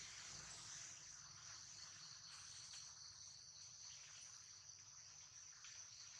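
Faint, steady high-pitched insect chorus, an unbroken drone with no rhythm or pauses.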